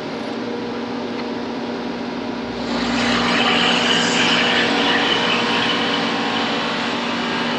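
Double-disc grinder running with a steady hum and a hiss of grinding and coolant. The hiss grows louder about two and a half seconds in.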